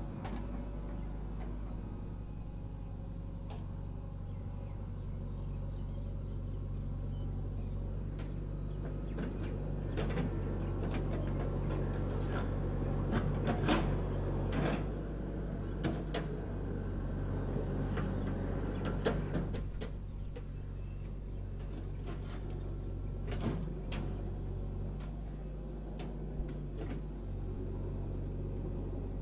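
JCB backhoe loader's diesel engine running steadily as the backhoe digs, with scattered clanks and knocks from the bucket and arm working in earth and stones, most of them in the middle and one more later on.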